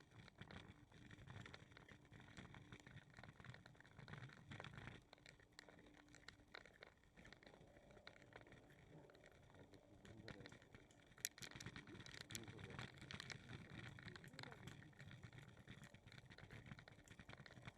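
Near silence: faint outdoor ambience with scattered soft ticks and taps, and one sharper click a little past the middle.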